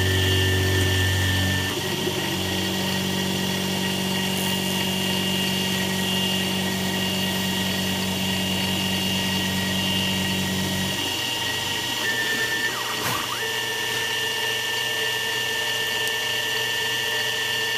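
X2 mini mill running under CNC, its spindle motor and table drives giving a steady whine of several held tones as the end mill surfaces a block of graphite-impregnated nylon. The low drive hum changes note about 2 s in and drops away about 11 s in, with a short sweep in pitch a little later.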